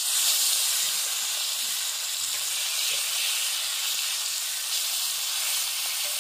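Masala-coated fish frying in hot oil in a pan: a loud, steady sizzle that starts suddenly as the fish goes into the oil.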